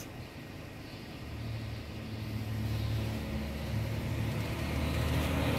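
Low rumble and rustling from a hand-held camera being moved out of a car's back seat, past a seat still in its plastic wrap, growing louder from about a second in.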